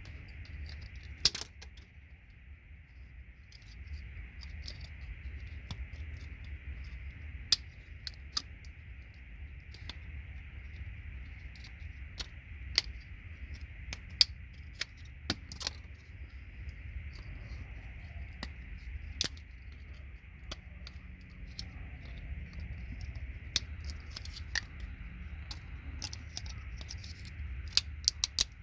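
Irregular sharp clicks and snaps of plastic RJ45 jack housings being bent back and pried off a patch panel's gold-plated pins, with small pieces clattering, over a steady low hum.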